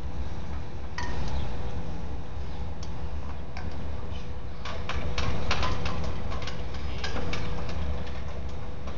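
Metal flag snaps and halyard clinking against a metal flagpole as the flag is worked on the pole: a ping that rings briefly about a second in, then a scattering of clicks and clinks, thickest in the middle. A steady low rumble runs underneath.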